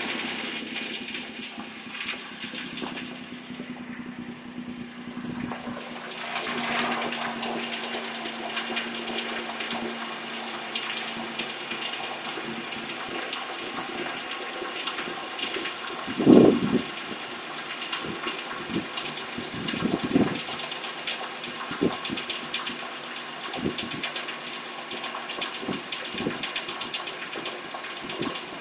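2007 Pontiac Torrent's 3.4L V6 engine running on start-up with a rapid, steady ticking and tapping, plus a few louder thumps in the second half. This is the start-up tick that persisted after the dealer replaced the valve lifters, exhaust crossover pipe and studs.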